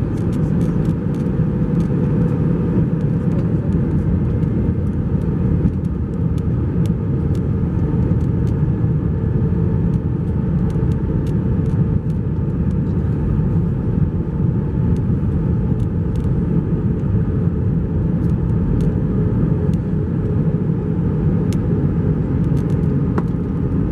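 Steady cabin rumble of an Airbus A321-231 in descent, its IAE V2500 engines and the airflow over the fuselage heard from a window seat over the wing, with a faint steady hum and a few light clicks.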